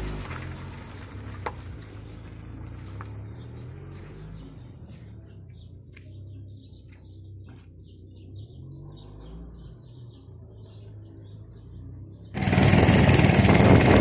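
A vehicle engine idling low and steady, with faint short bird chirps over it in the dark. About twelve seconds in, a sudden loud rush of wind and water noise on the microphone takes over.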